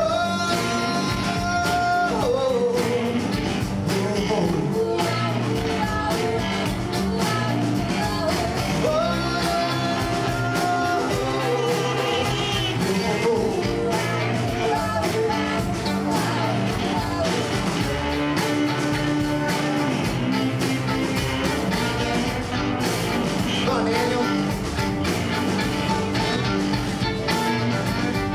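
Live blues band playing with acoustic and electric guitars, drums and singing voices. Long held high notes slide down about two seconds in and again near eleven seconds in.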